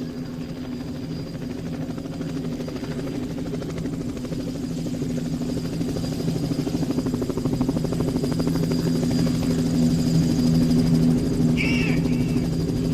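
Helicopter rotor sound effect over a steady low drone in a rock recording, with fast even chopping that grows steadily louder. A voice calls out briefly near the end.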